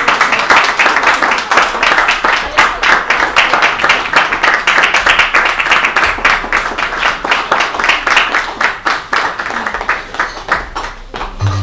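Audience applauding as the band takes the stage, the clapping thinning out and dying away near the end.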